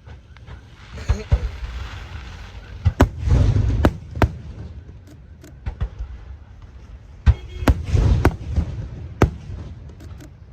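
Aerial fireworks shells bursting overhead: scattered sharp bangs with rumbling booms, heaviest about three to four seconds in and again about eight seconds in.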